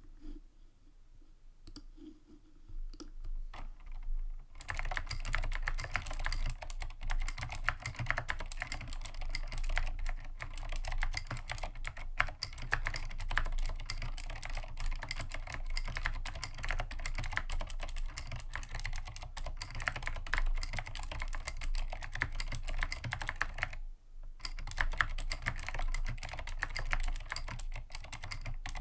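Typing on a vintage Dolch PAC G80-1813 mechanical keyboard with clicky Cherry MX Blue switches and tall SA PuLSE keycaps, the keys bottoming out. A few scattered keystrokes at first, then fast continuous typing from about four seconds in, with a short pause near the end.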